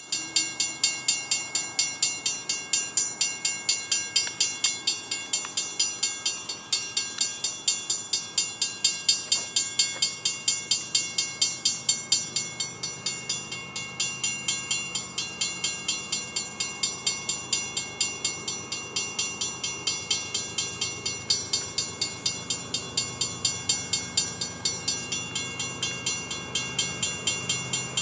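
Railroad grade-crossing warning bell ringing in rapid, even strikes, with the low rumble of an approaching freight train's diesel locomotives building through the second half.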